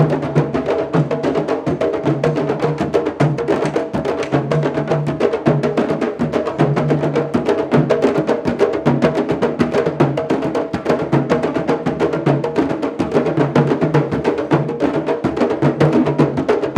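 Candombe drum ensemble playing a steady dense rhythm, hands and sticks on the chico, repique and piano drums, with many sharp stick clicks and a recurring low drum tone.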